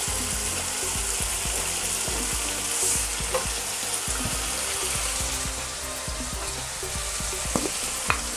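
Sliced carrots, green beans and onion sizzling steadily in a hot wok while a spatula stirs them. A few clicks of the spatula against the pan come partway through and twice near the end.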